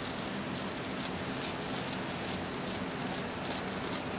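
Scissors cutting through foil-faced insulation sheet: a steady run of short, crinkly snips, about two to three a second, over a low steady hum.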